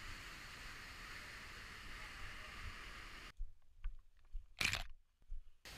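Whitewater rapids of a rain-swollen river rushing steadily. About three seconds in this cuts off abruptly. What follows is quieter, with a few faint knocks and one short swish, as of footsteps and ferns brushing past on a bush track.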